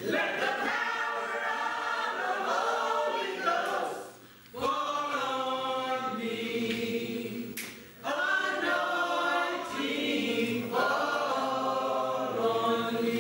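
Church choir singing together in sustained sung phrases, with brief breaks between phrases about four and eight seconds in.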